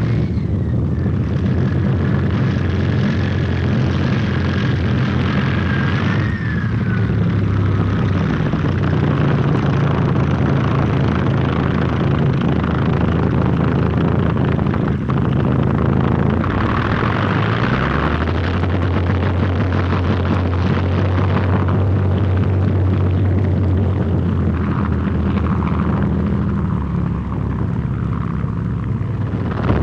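Propeller engines of a Messerschmitt Bf 110 running as the aircraft taxis past, a loud, continuous drone. A thin whine wavers and falls away in the first several seconds, and the engine note steps up in pitch about eighteen seconds in.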